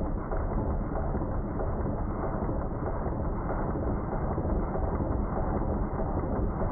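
Stuart Models three-cylinder triple expansion steam engine running fast on live steam: a steady, rapid mechanical clatter of crankshaft, eccentrics and valve gear.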